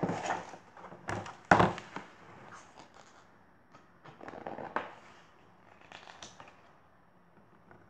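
Paper pages of a picture book rustling and crackling as the book is handled and a page turned, in several short bursts, the loudest about a second and a half in.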